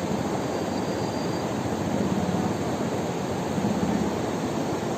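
Mountain river rushing over rocks: a steady, loud roar of fast-flowing water.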